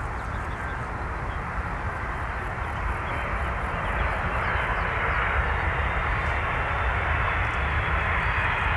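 Boeing 707's four jet engines at takeoff power: a steady, rushing jet noise that grows gradually louder as the aircraft comes closer.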